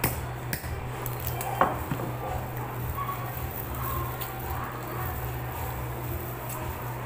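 Plastic-gloved hands pulling apart a cooked crab: a few small cracks and clicks of shell, the loudest about a second and a half in, then soft crinkling and rustling, over a steady low hum.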